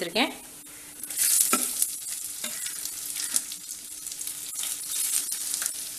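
Sliced onions dropped into hot oil in a clay kadai, which starts sizzling loudly about a second in, while a ladle scrapes and stirs them against the pot.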